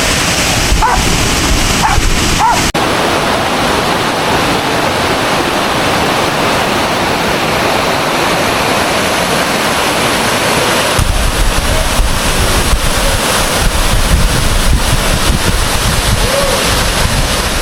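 Waterfall rushing steadily, with a dog barking a few times in the first three seconds. About two-thirds of the way through, a low rumble joins the water noise.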